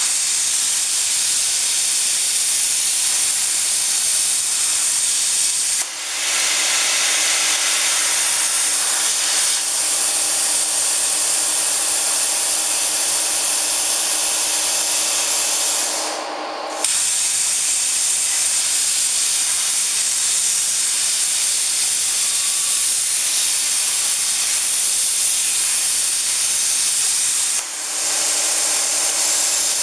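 CNC oxy-fuel cutting torch hissing steadily. The hiss dips briefly three times, most deeply for under a second about 16 seconds in.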